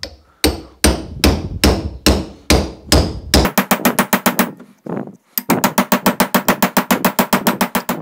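A hammer striking a steel punch to drive the copper secondary winding out of a microwave oven transformer's core. The blows come steadily about two or three a second, then after about three and a half seconds turn much faster, roughly ten a second, with a short break near five seconds.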